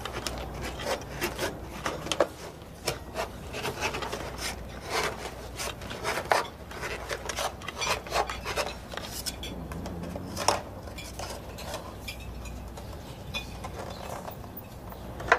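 Metal scraping and clinking, as of cutlery working against a tin: many short irregular scrapes and clicks, with a louder clink about ten seconds in and another at the very end.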